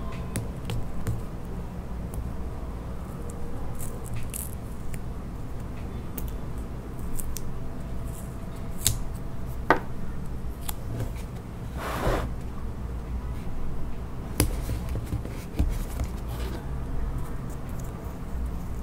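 Hands peeling paper flower stickers off a sticker roll and pressing them onto a sketchbook page: scattered small clicks and crinkles, with one longer peeling rasp about twelve seconds in, over a low steady hum.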